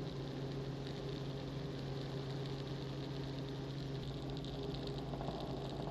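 Robinson R44 helicopter in cruise flight, its piston engine and rotors making a steady, even drone.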